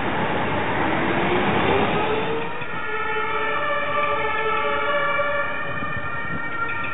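Tram pulling away, its traction motor whine rising in pitch over loud rolling noise. After a cut about two and a half seconds in, a cluster of steady high tones at several pitches.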